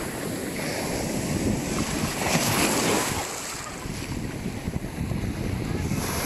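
Sea waves washing and breaking around a person standing in the surf, rising in a swell about two and a half seconds in, with wind rumbling on the microphone.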